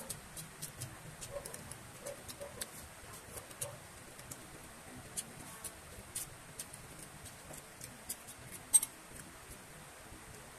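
Close-miked eating sounds: wet mouth clicks and lip smacks from chewing, irregular, a few a second, with one louder sharp click near the end.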